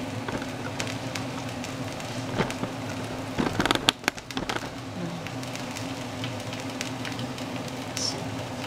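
Chopped onion frying in oil in a pan, a steady crackling sizzle. There is a brief cluster of knocks and rattles about three and a half seconds in, and a few light knife taps on a plastic cutting board near the end.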